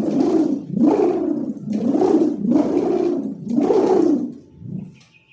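A sendaren (kite hummer) with a gift-ribbon reed stretched on a long bow is swung through the air by hand. It gives its humming 'ngukuk' sound about once a second, each hum rising and then falling in pitch. A weaker last hum comes near the end, then it stops.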